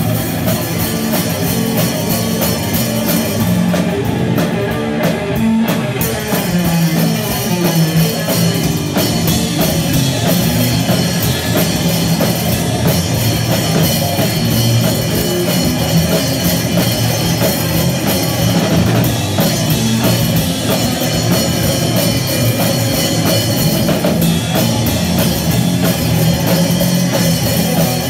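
Punk rock band playing live: loud electric guitar through a Sovtek amp with a drum kit pounding along, steady and continuous.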